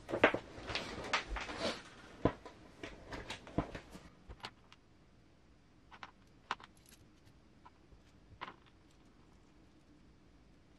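Small metal transmission parts (shafts, gears and bearings) clinking and rattling as they are handled on a bench. There is a busy flurry in the first two seconds, then scattered light clicks and ticks.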